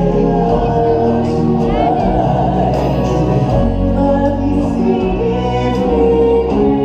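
Music with a choir of voices singing held notes over a steady accompaniment.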